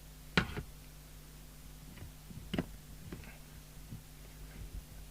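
Sharp clicks and knocks of a CB radio's case and screws being handled as it is put back together, the loudest about half a second in and another about two and a half seconds in, over a steady low hum.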